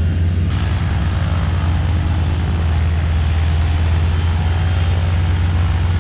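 Steady drone of a propeller aircraft engine over a strong low rumble, growing louder about half a second in.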